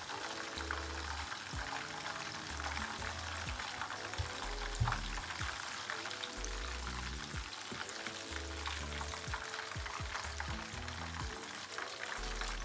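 Tilapia frying in hot oil in a pan, a steady sizzle with scattered crackles, under background music with a stepping bass line.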